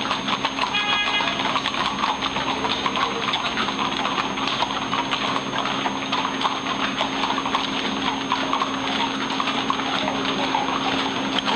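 Many horses' hooves clip-clopping on a paved street as a group of riders walks past.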